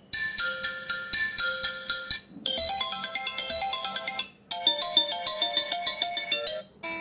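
Infinix Smart 5 smartphone playing short previews of its built-in ringtones through its loudspeaker: melodic electronic tunes, three in a row. Each stops abruptly after about two seconds as the next one is tapped, and another starts near the end.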